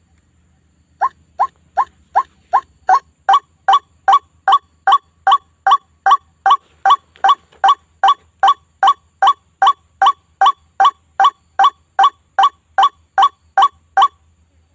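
White-breasted waterhen (ruak-ruak) call played as a bird-lure recording: one short rising note repeated evenly, about two and a half times a second. The calls start about a second in and stop just before the end.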